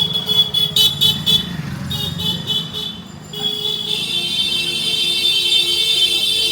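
Vehicle horns honking: a run of short toots in the first three seconds, then one long held blast from about three seconds in, over a low rumble of traffic.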